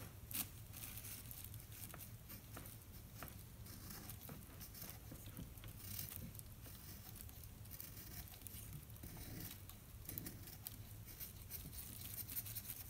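Small knife blade shaving the wood casing off a pencil: a faint, irregular run of short scraping strokes as slivers of wood are cut away.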